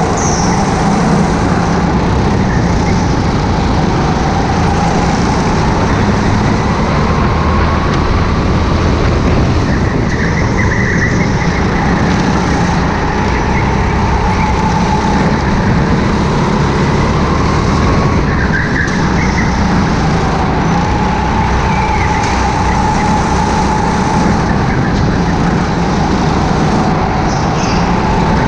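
Onboard sound of a racing go-kart at speed: the engine runs loud and steady, its whine rising and falling with speed around the track, with brief tyre squeals a few times.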